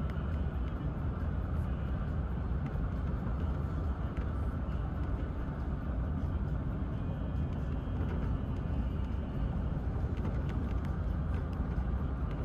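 A steady low rumble, unchanging throughout.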